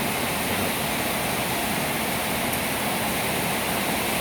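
Heavy rain falling, a steady unbroken rushing hiss.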